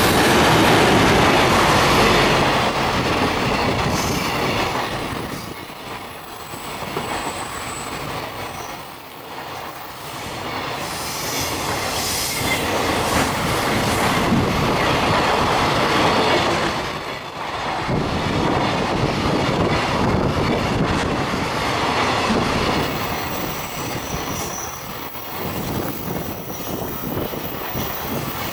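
A JR Freight EF210 electric locomotive's container freight train passing at close range: the wheels rumble and clatter along the rails as wagon after wagon rolls by. The loudest moment is the locomotive going past at the start, and the noise then rises and falls with the passing wagons.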